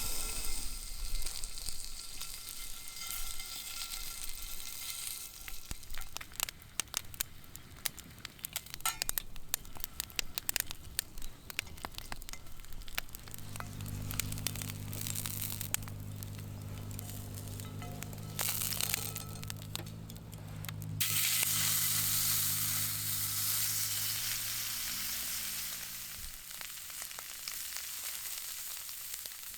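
Food sizzling in an iron frying pan over a campfire, with crackling pops. The sizzle grows suddenly louder about two-thirds of the way through. A low steady hum sounds through the middle stretch.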